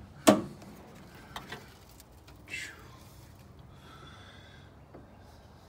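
Hood of a 2010 GMC Canyon pickup being opened: a sharp metallic click as the latch lets go, two lighter clicks about a second later, then a short swish as the hood swings up. Faint breathing close to the microphone follows.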